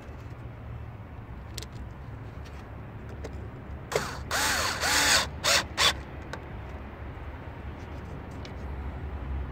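Cordless drill-driver driving a screw into a fuel filter housing lid. About four seconds in, the motor runs for about a second with its pitch rising and falling, then gives two short blips.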